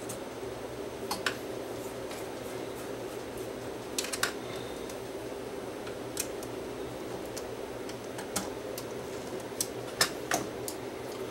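Small sharp clicks and ticks of a screwdriver and metal parts as the pressure plate is screwed onto the cassette transport, about ten in irregular clusters, the loudest a pair near the end. A steady low hum runs underneath.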